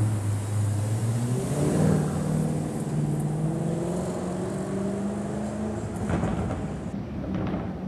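Lamborghini Urus twin-turbo V8 accelerating away from a standstill, its exhaust note rising in pitch twice as it pulls through the gears, then easing off as the car moves away.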